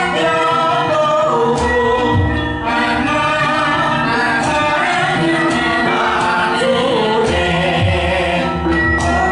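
Javanese gamelan ensemble playing: bronze metallophones ring out sustained notes over deep gong strokes every second or two. A singer's voice carries a wavering melody above them.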